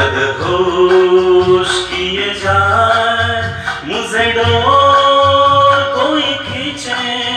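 A man singing a Hindi film song into a handheld karaoke microphone, with long held notes over a backing track that has a pulsing bass line.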